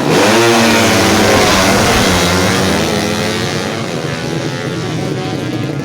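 Four-stroke 200cc underbone drag-racing motorcycle at full throttle. Its engine pitch swings sharply up and down for about the first second, then the sound fades into a rushing noise as the bike runs off down the strip.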